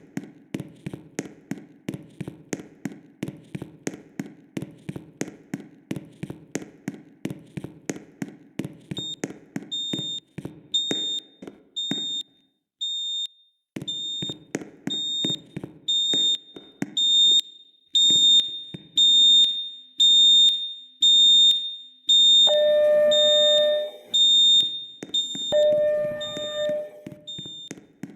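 School fire alarm system sounding in a test: a loud pulsing signal at about three to four pulses a second, joined about nine seconds in by a repeating high-pitched beep, with two longer, lower tones near the end.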